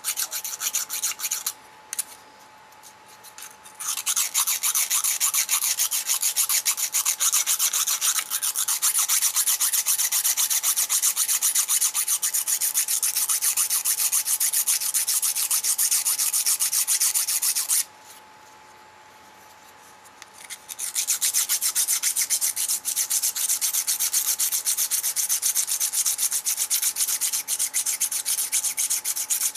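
Emery board rubbed in quick back-and-forth strokes across the wire ends on a model train's circuit board, filing them down almost flush. The scraping stops twice for a couple of seconds, once soon after the start and once past the middle.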